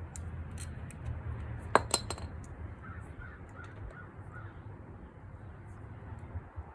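Two sharp metallic clinks close together about two seconds in, a wrench working loose the oil drain plug on a Honda Ruckus scooter, over a low steady rumble in the background.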